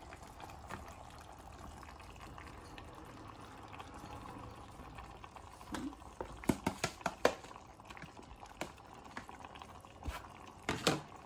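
Wet tomato slices scraped from a plastic bowl into a steel pot of simmering chicken masala on a gas hob, over a steady low hiss from the pot. A quick run of sharp knocks of the spatula and bowl against the pot comes about six to seven seconds in, and two more near the end.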